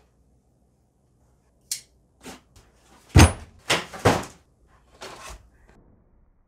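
Cardboard box of a nitro RC car being handled and opened on a rubber bench mat: a run of short knocks and cardboard scrapes, the loudest about three seconds in.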